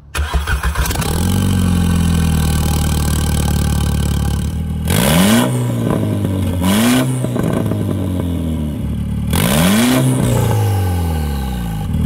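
A VW MK6 GTI's 2.0 TSI turbocharged four-cylinder fires up and idles with its exhaust open at the downpipe, no mid-pipe fitted. It is revved three times, about five, seven and nine and a half seconds in, each rev rising and dropping back to idle.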